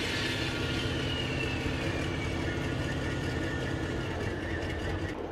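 Heavy armored military vehicle's engine running steadily at idle, with a faint high whine slowly falling in pitch over the first couple of seconds.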